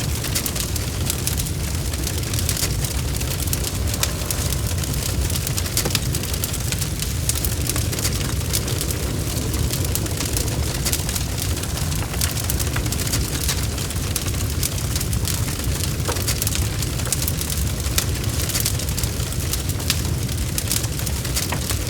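Wood fire in a fireplace burning steadily. A continuous low rumble of the flames runs under dense, irregular crackling and popping.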